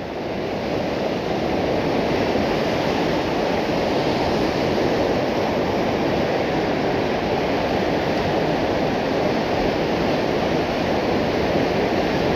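Whitewater rapids of a mountain river rushing steadily, a dense, even roar of churning water that grows a little louder over the first second or two.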